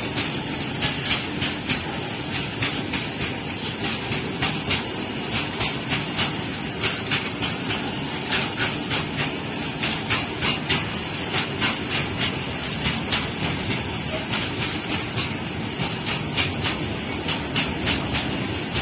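Loaded BOXN open freight wagons rolling past: a steady rumble of wheels on rail with the wheel sets clicking over the rail joints in a quick, even rhythm.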